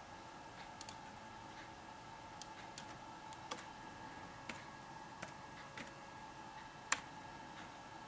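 Scattered single clicks from a laptop's keys being pressed, irregularly spaced, the sharpest about seven seconds in, over a steady low hum with a faint whine.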